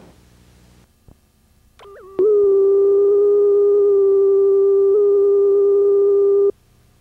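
Steady electronic line-up tone from a videotape slate: a single loud pitch with faint overtones. It starts about two seconds in after a brief glitch and cuts off suddenly about half a second before the end, leaving tape hiss.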